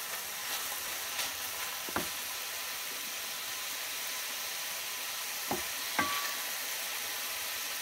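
Button mushrooms sizzling steadily in a stainless steel frying pan. A wooden spatula stirs them, knocking against the pan once about two seconds in and twice more a little after the middle.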